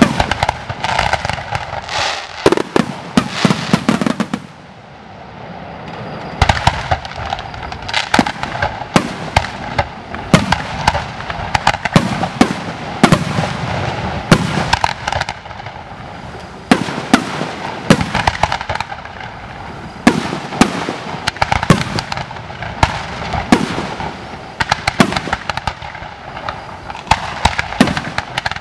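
Fireworks display: a dense barrage of bangs and crackles from bursting aerial shells and rising shots. It eases off about four seconds in and picks up again about two seconds later.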